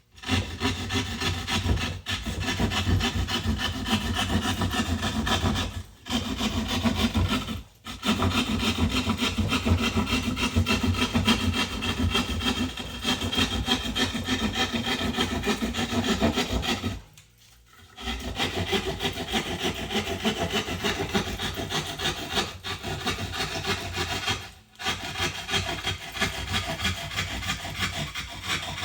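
Hand drywall saw cutting along the edge of a 3/4-inch sheetrock piece in quick back-and-forth strokes. It stops briefly about six and eight seconds in, for about a second near seventeen seconds, and again near twenty-five seconds.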